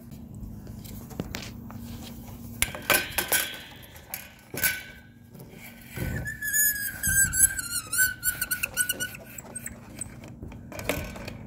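Clicks and knocks of a window's block-and-tackle balance and its plastic shoe being handled and fitted in the metal jamb channel, then a thin high squeal lasting about three seconds as parts rub in the track.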